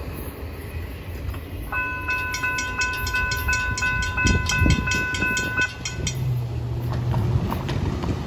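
Railroad grade-crossing bell ringing in rapid, even strokes while the gate arms rise after the train has cleared. It starts about two seconds in and stops about two seconds later, once the gates are up. A car then drives over the crossing near the end.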